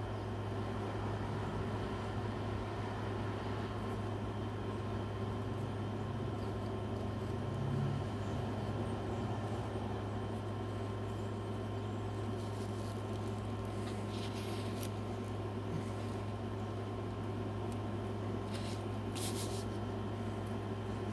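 Steady low mechanical hum throughout, with a few short scratches of pencil on paper about two-thirds of the way in and again near the end.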